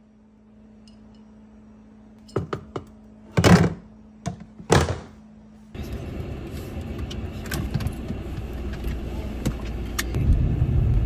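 A few clicks and two loud thuds, then a car's engine and cabin noise heard from inside the car, with scattered small clicks over it; the low rumble grows louder near the end as the car starts to move.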